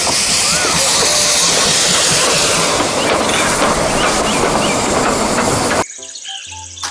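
Steam locomotive venting steam from its cylinder drain cocks: a loud, steady hiss that cuts off suddenly near the end, where background music takes over.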